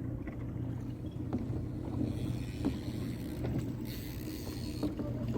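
Small boat's motor running steadily with a low, even hum. Partway through, a hiss of water rushing along the hull rises and then falls away.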